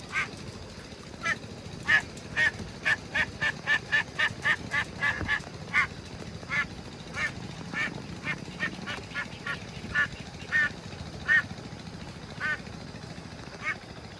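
Domestic ducks quacking: many short calls following one another quickly, densest in the first half and thinning out later, over a low steady rumble.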